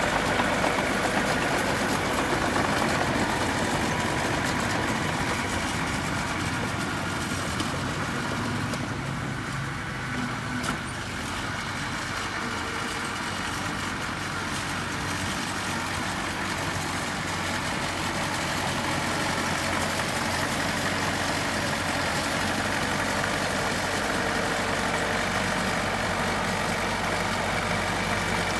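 Heavy earthmoving machine's engine running steadily, with a slight dip in loudness about ten seconds in.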